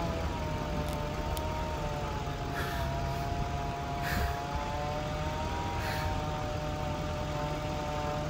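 An engine running steadily at a constant speed, with three short hissing noises in the middle.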